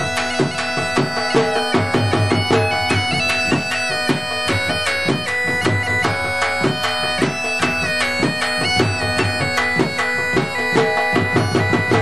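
Background music: a wind instrument plays a melody that steps between held notes over a steady drone, with regular drum beats.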